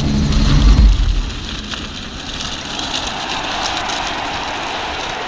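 Music with a low bass line stops about a second in. It leaves a steady rush of wind noise on the microphone and mountain-bike tyres rolling over a dry, gravelly dirt trail.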